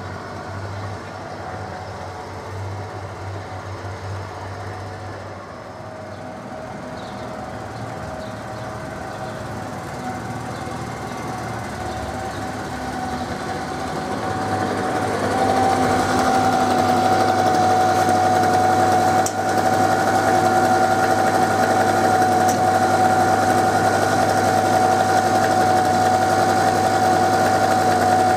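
Small dog-waste vacuum vehicle's engine and suction unit running with a steady high whine over the engine. It grows louder about halfway through and then holds steady.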